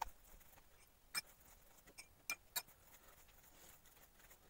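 Spatula stirring soft dough in a stainless steel bowl, faint, with several sharp clicks as the utensil knocks against the metal bowl.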